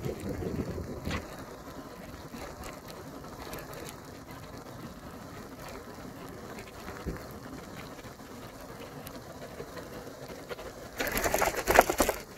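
Bicycle riding on a rain-soaked road: a steady hiss of wet tyres and rain. Near the end a loud crackling rub lasts about a second.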